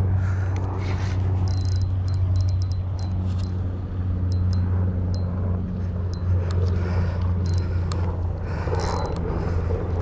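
A steady low rumble, with scattered light clicks and ticks from handling a spinning rod and reel while a large ray pulls on the line.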